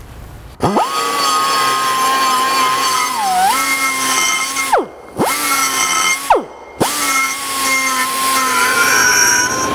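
Pneumatic die grinder with a bit grinding metal out of the inside of a polished aluminum carburetor hat: a steady high whine that sags in pitch under load a few seconds in. The grinder stops and spins back up twice.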